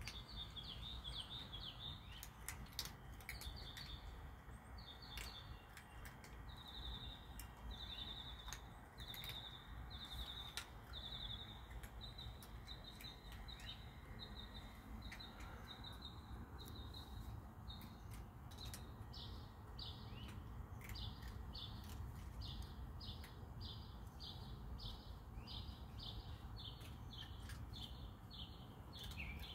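A long series of high chirps, about one a second. They grow quicker and sharper in the second half, over a low rumble and a few scattered clicks.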